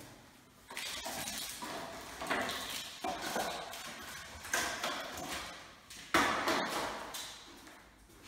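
Hard plastic scraping and knocking as an old smoke alarm is worked loose from its ceiling mount: a series of sharp knocks, each followed by rubbing, with the loudest knock about six seconds in.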